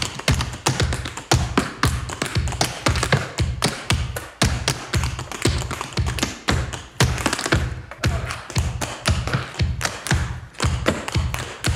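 Tap dancing on a concrete floor: a fast, dense run of sharp shoe taps and stamps in an uneven, syncopated rhythm.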